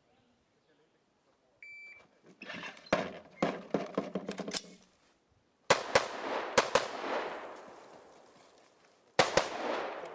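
Shot-timer beep, then a stretch of rattling handling noise. Then a Uronen Precision UR-15 AR-15-pattern semi-auto rifle with a three-chamber compensator fires about four quick shots, and two more about three seconds later, each crack echoing off the range berm.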